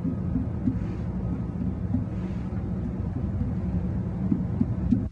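Finger percussion of the abdomen: a run of soft, low taps as the middle finger strikes a finger laid on the belly, sounding out for tympany and dullness. The taps sit over a steady low rumble, which cuts off suddenly at the end.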